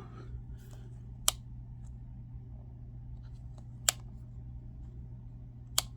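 Three short, sharp clicks, about two seconds apart, over a faint steady low hum.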